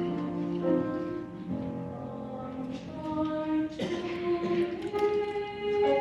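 A school madrigal choir singing sustained chords that change about once a second, with sung consonants now and then.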